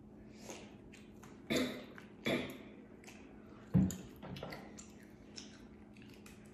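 Boiled crawfish being peeled and eaten by hand, with soft squishing and chewing, broken by three short sharp clacks or knocks about a second and a half in, just after two seconds, and near four seconds, the last the loudest.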